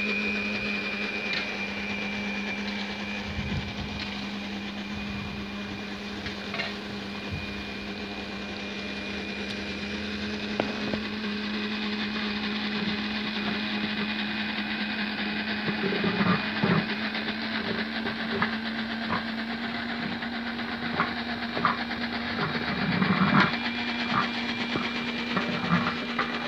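A steady machine hum holding one pitch throughout. In the second half, scattered sharp clinks and knocks of metal pots and utensils being handled.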